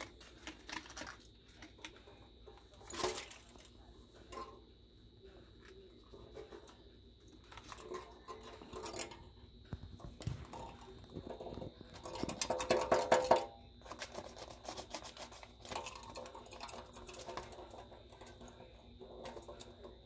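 Paper bag crinkling and rustling as a lovebird moves about inside it in a stainless steel sink, with scattered clicks and taps. A short burst comes about three seconds in and a longer, louder burst of rustling about two-thirds of the way through.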